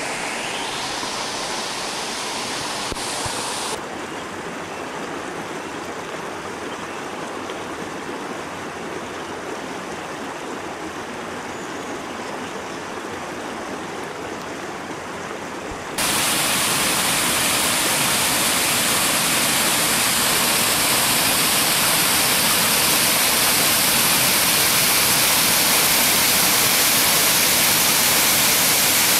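Rushing water of a mountain stream and waterfall, a steady hiss. It steps down slightly about four seconds in, then jumps louder and brighter about halfway through, with water pouring over a rock ledge into a pool.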